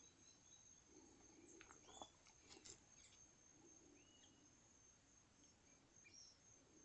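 Faint natural ambience: a steady high-pitched insect trill, with a few short bird chirps and light clicks.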